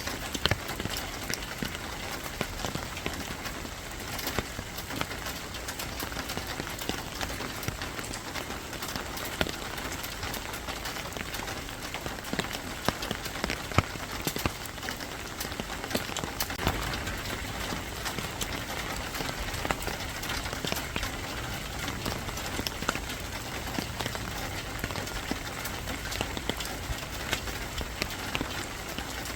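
Rain falling steadily: an even hiss of rain with frequent sharp drops tapping on a hard surface.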